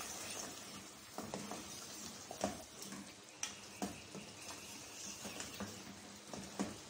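Chicken curry being stir-fried with a wooden spatula in an enamel pot: a faint sizzle, with scattered scrapes and knocks of the spatula against the pot. This is the frying-down (bhuna) stage, with the ghee already separated from the masala.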